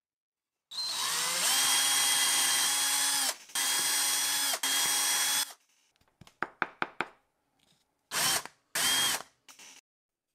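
Electric drill boring holes through a thin plywood piece: a run of about five seconds with a brief break in the middle, a few sharp clicks, then two short bursts near the end.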